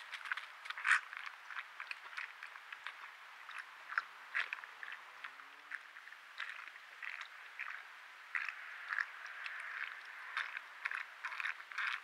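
Javelinas (collared peccaries) crunching and chewing food from feeding bowls: a steady run of short, irregular crunches.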